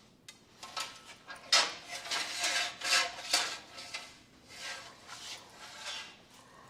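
Steel fuel line being worked through a line straightener: irregular scraping and rubbing strokes with a faint metallic squeal, heaviest in the first half.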